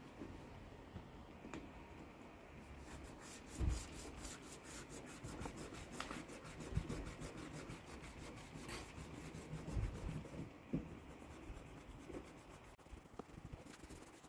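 Faint rubbing and scraping strokes as old, melted weatherstrip rubber is scraped out of a car's window channel, with a run of quick, even strokes in the middle and a few light knocks.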